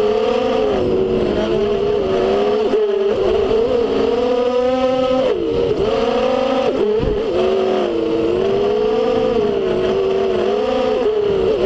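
FPV quadcopter's brushless motors and propellers whining, recorded on board, the pitch rising and falling with the throttle and dipping sharply several times, over a steady rush of air.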